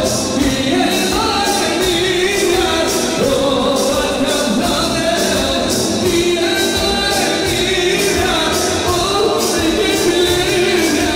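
Live wedding band music with a singer, over a steady beat.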